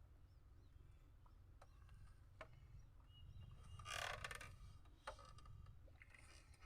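Near silence over a low steady rumble, with a few faint clicks and one brief rustling noise about four seconds in.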